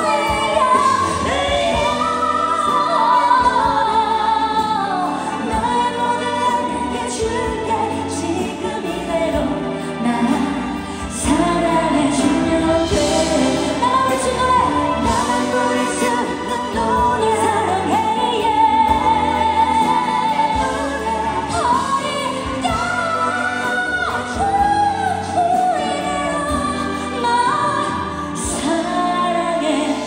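A woman singing a pop song live into a handheld microphone, with band accompaniment.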